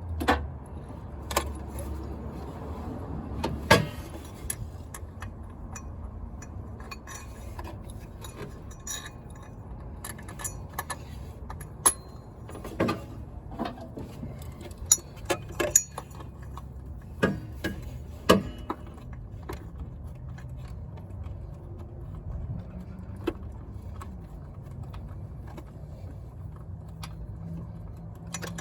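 Scattered metallic clicks and clinks, irregular and some sharp, as of hand tools and parts being handled during work on the car, over a low steady hum.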